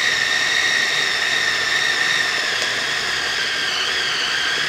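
Oster food processor motor running continuously as it grinds ground beef, a steady high whine that sags slightly in pitch near the end.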